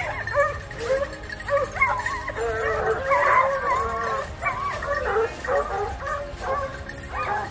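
A pack of boar-hunting dogs baying together, many overlapping yelping voices without a break, as they give tongue on the trail of wild boar.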